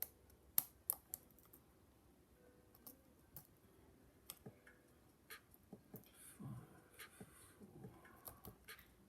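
Faint, sharp metallic clicks of a lock pick and tension tool working the tapered pin tumblers of a Lockwood 310/72 padlock, a quick run of clicks in the first second, then scattered ticks. A soft brief rustle of handling comes about two-thirds of the way through.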